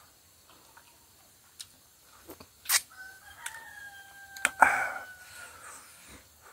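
A rooster crows once in the background, one long drawn-out call from about three seconds in until near the end. Over it come close mouth clicks and smacks of eating by hand, with sharp ones just before the crow and the loudest about halfway through it.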